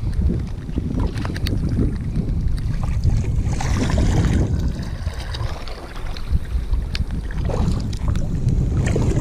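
Kayak paddle strokes splashing and dripping in calm sea water. A louder splash comes about four seconds in as a blade dips, all over a steady low rumble of wind on the microphone.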